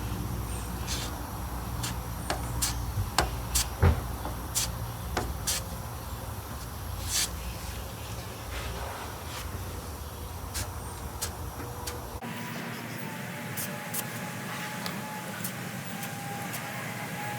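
Plastic body-filler spreader scraping and clicking against a steel car door panel as lightweight filler is spread over a dent: a run of short, sharp clicks and scrapes over a steady low hum. About twelve seconds in, the low hum cuts off abruptly and the scraping goes on more softly.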